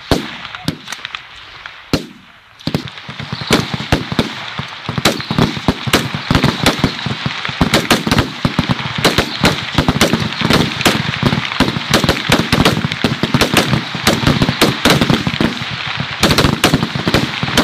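Many M16 rifles firing along a firing line, shots from different shooters overlapping. A few scattered shots at first, then from about three seconds in the shots come thick and fast, many per second.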